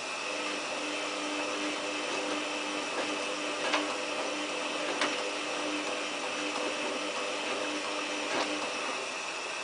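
Samsung WF8804RPA washing machine running in its prewash: a motor hum in short even pulses over a steady hiss. The hum stops about a second before the end, and there are three light clicks along the way.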